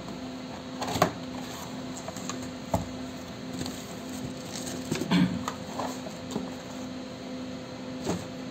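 Cardboard box being opened and handled: flaps pulled open and the box shifted, with a few sharp knocks and rustles. A steady low hum runs underneath.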